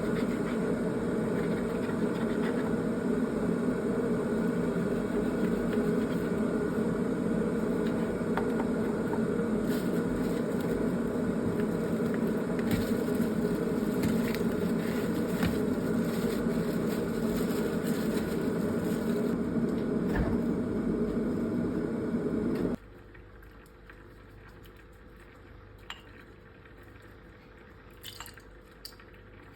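Kitchen cooking sounds: a steady rushing, liquid-like noise with occasional clinks of dishes. It cuts off suddenly about three quarters of the way in, leaving only faint clinks.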